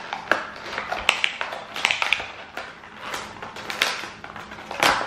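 Clear plastic clamshell food container crackling and clicking as its seal is pulled and the lid is pried open, in a run of irregular sharp crinkles with one louder snap near the end.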